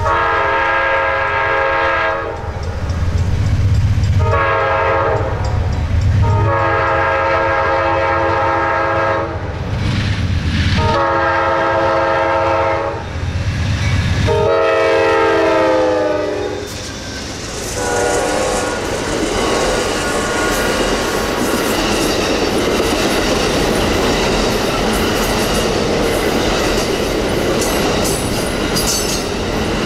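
GE P42DC diesel locomotive sounding its Nathan K5LA five-chime horn in a series of six blasts over about 16 seconds, over a low engine rumble. The last blast drops in pitch as the locomotive goes by. The horn then stops, and the passing bilevel passenger cars and auto-carrier cars rumble and clatter over the rail joints.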